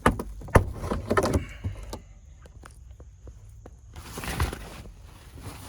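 Sharp plastic clicks and knocks from car interior trim parts being handled and pulled free, then a short rustling scrape about four seconds in.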